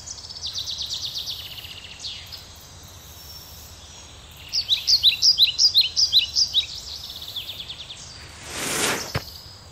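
Jungle ambience: birds chirping in quick repeated calls, with a fast insect-like trill at the start, over a soft steady hiss. Near the end a rushing whoosh swells and cuts off suddenly.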